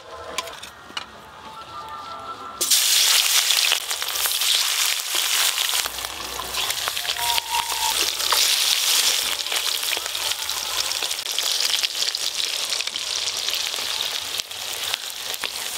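Pieces of hilsa fish frying in hot oil in a metal kadai: a dense, loud sizzle that starts suddenly about three seconds in as the fish goes into the oil, and keeps crackling steadily.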